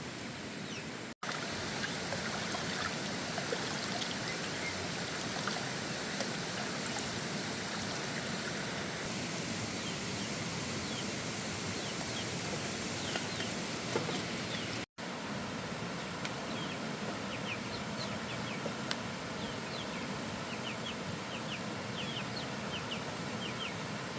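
Steady outdoor rushing noise with faint short chirps scattered through it, most of them in the second half. The sound cuts out for an instant twice: about a second in and about two-thirds of the way through.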